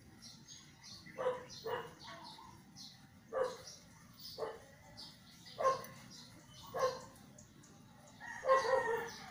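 Short animal calls, about eight in all, some coming in pairs, spaced a second or so apart over a quiet background.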